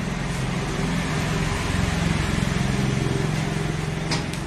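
Motor vehicle engine hum from road traffic, growing louder toward the middle and easing off. Two short sharp clicks near the end.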